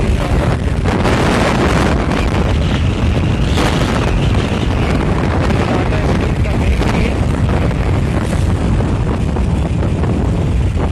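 Steady wind rush buffeting the microphone of a moving scooter, with the scooter's engine and road traffic running underneath.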